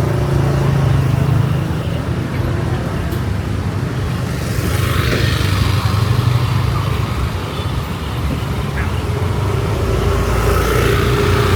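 Road traffic: a steady low engine hum from cars and motorbikes, with a vehicle passing about five seconds in and another near the end.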